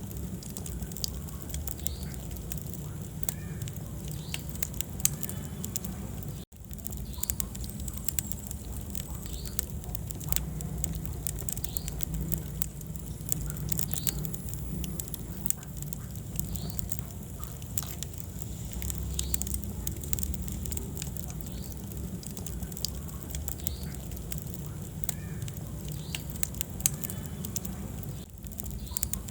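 Wood fire burning in a fireplace: a steady low rumble of flames with frequent sharp crackles and pops. The sound drops out for an instant about six and a half seconds in.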